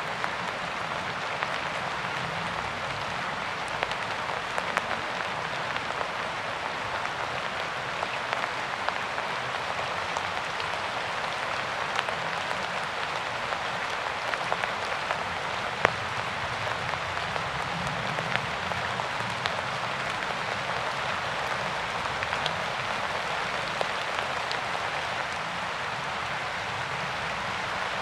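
Steady rain falling, an even hiss with scattered individual drops ticking sharply on a surface.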